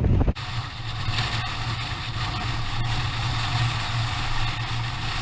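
Aprilia Tuareg 660's parallel-twin engine running at steady, even revs with a low hum, after a rush of wind noise on the microphone cuts off abruptly just as it starts.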